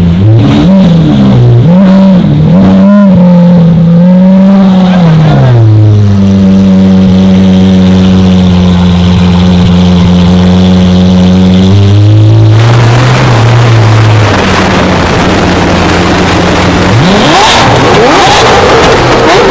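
Lamborghini supercar engine revving, very loud. The pitch swings up and down several times, then holds steady for several seconds. After that it breaks into a harsh, full-throttle roar, with the pitch climbing again near the end.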